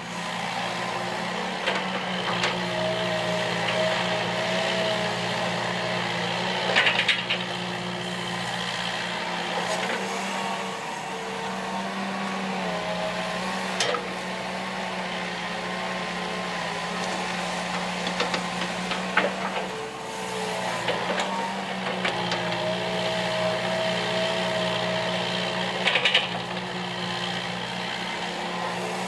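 Hitachi EX120 hydraulic excavator working, its diesel engine running steadily under load. A higher whine rises and falls several times as the machine digs and swings, and sharp metallic clanks sound now and then, several of them in all.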